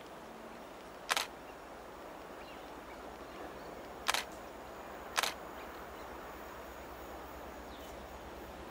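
Three sharp single-lens reflex camera shutter clicks, the last two about a second apart, over the faint low rumble of a diesel locomotive hauling tank wagons as the freight train approaches.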